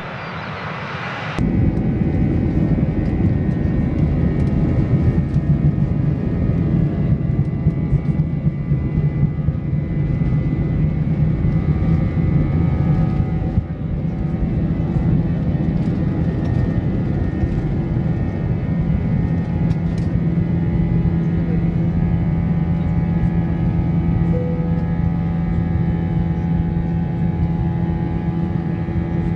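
Airbus A320 jet engines at takeoff power, first heard briefly from beside the runway, then cutting about a second and a half in to the loud, steady roar inside the passenger cabin during the takeoff roll and climb-out. The cabin sound is a deep rumble with several steady engine tones, which run steadier in the second half once the aircraft is airborne.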